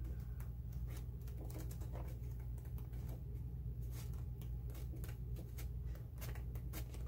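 Pages of a 12-by-12 patterned scrapbook paper pad being turned one after another: soft, scattered paper rustles and flicks, over a steady low hum.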